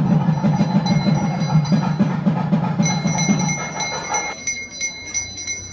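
Temple drums beating fast, with a hand bell ringing continuously during the puja offering. The drumming stops about four seconds in and the bell keeps ringing.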